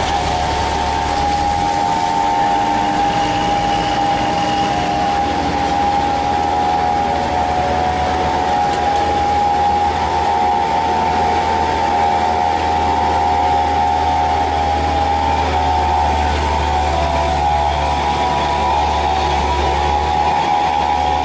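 Hino truck's diesel engine running under load at steady revs, a steady high drone over a low rumble.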